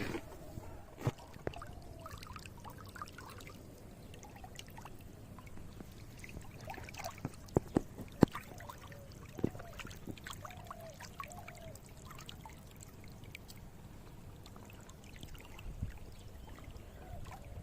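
Water running and trickling in a village canal, a steady flow, with a few sharp clicks or splashes, most of them bunched a little past the middle.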